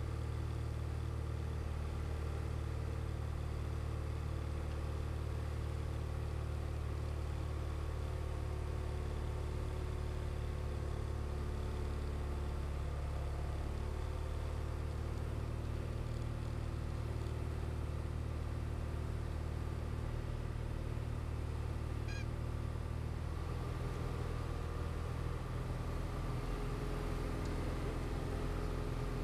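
Diamond DA40 light aircraft's piston engine and propeller drone heard from inside the cockpit, running steadily, with a slight shift in pitch about three-quarters of the way through.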